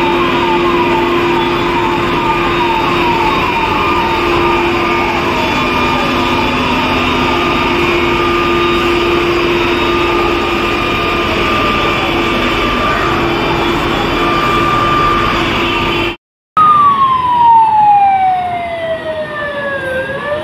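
Fire engine sirens over a steady rushing hiss: a fast yelping siren in the first few seconds, then, after a sudden cut about 16 seconds in, a close, loud wailing siren that falls slowly in pitch and starts to rise again near the end.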